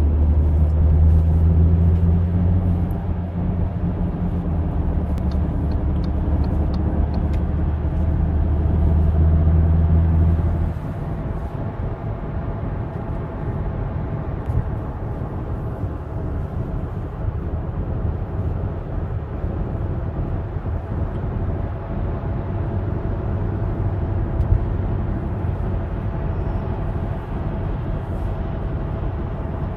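Audi on the move with a loud low drone over road rumble, the drone typical of a worn, bad wheel bearing. The drone is strongest for the first ten seconds or so, then drops away suddenly, leaving a steady tyre and road rumble.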